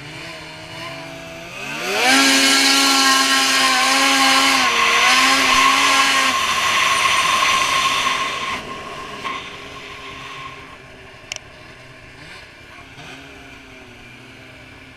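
A Polaris Switchback Assault 144 snowmobile's two-stroke engine, fitted with a Bikeman Velocity trail can exhaust, revs up sharply about two seconds in. It holds high revs under hard acceleration with a loud rush of wind and track noise for about six seconds, then eases off to a quieter, steady cruise.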